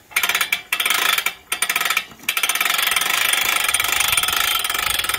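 Geared hand boat winch on an ATV bale unroller being cranked, its ratchet pawl clicking rapidly over the gear teeth. It goes in short spurts with brief pauses at first, then runs steadily from about two seconds in.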